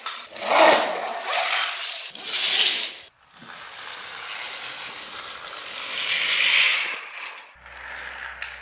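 Handling noise: rustling and scraping as plastic and wooden toy trains and track pieces are moved by hand, coming in several loud swells.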